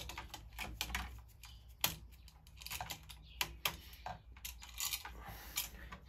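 Irregular small clicks and ticks of a screwdriver on a light switch's terminal screws as the switch and its wires are handled.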